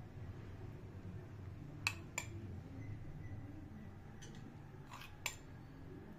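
A metal spoon clinking lightly against the dishes while sauce is spooned from a glass bowl onto the plate: two clinks about two seconds in, the first the loudest, and three more near the end, over a low room hum.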